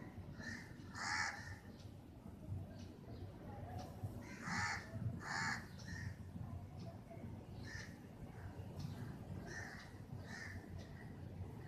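Short harsh bird calls: a loud one about a second in and a close pair around five seconds in, with fainter calls later. Under them runs a steady low hum.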